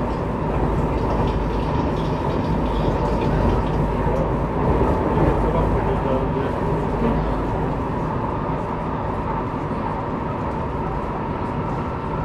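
CAF Civia commuter electric multiple unit running between stations, heard from inside a passenger car: a steady rolling rumble on the rails with the steady whine of its Siemens traction inverters.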